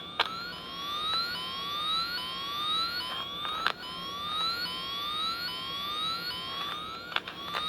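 Electronic tone from a wire-tracing tone generator and probe: a rising chirp repeated about twice a second, with a few sharp clicks.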